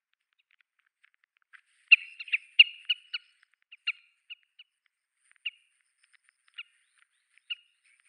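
Oriental pratincoles calling: short, sharp call notes from a small flock that has suddenly flushed into flight. The calls come thick and fast about two seconds in, then thin out to single calls spaced about a second apart.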